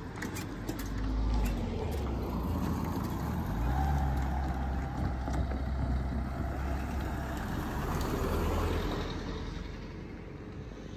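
A small hatchback car driving over the level crossing and past, with low engine hum and tyre noise that build up, stay strong through the middle and fade away near the end.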